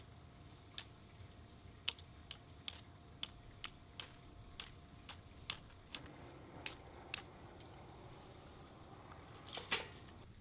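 A fire starter struck again and again against split wood, sharp clicks about two a second, until the shavings light. From about six seconds in a faint crackle of the catching flame, and a brief clatter near the end.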